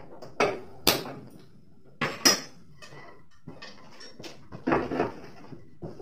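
A large metal frying pan of oil being set on the stove and shifted into place, giving several sharp metal clanks and knocks with brief ringing, then scraping. The oil is being put on to heat for deep-frying.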